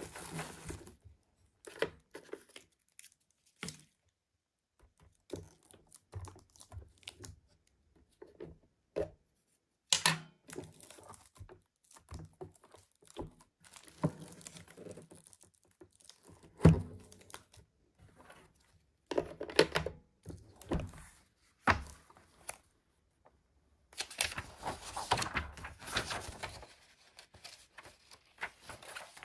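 Handling of packaging: scattered thunks and clicks with bouts of plastic and cardboard crinkling and tearing. The sharpest knock comes about two-thirds of the way through, and a longer stretch of continuous rustling follows near the end.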